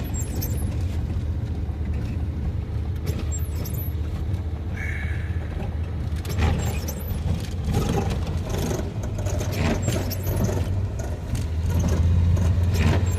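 Van's engine and road noise heard from inside the cabin while driving, a steady low drone that grows louder near the end, with scattered light clicks and rattles.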